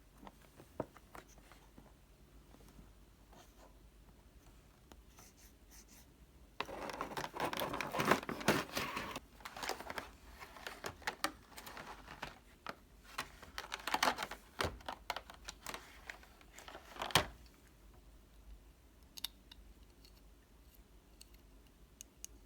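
Packaging being handled and opened by hand: faint clicks and taps, then a couple of seconds of loud tearing and crinkling about a third of the way in, followed by more rustles and clicks that end in a sharp snap, then a few faint ticks.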